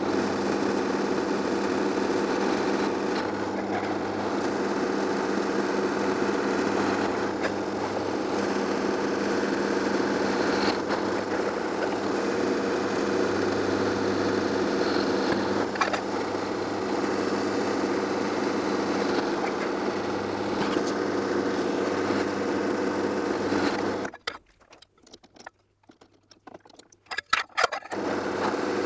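Pillar drill motor running with a steady hum while it drills holes in an aluminium plate. Near the end the sound drops almost to silence for about four seconds, with a few small knocks, then the motor hum comes back.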